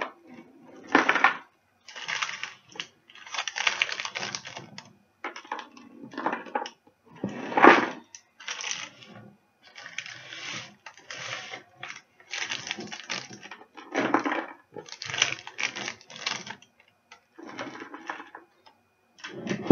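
Baked granola clusters crunching and rattling as they are broken up by hand on a baking tray and dropped into a plastic tub, in irregular short bursts with brief pauses.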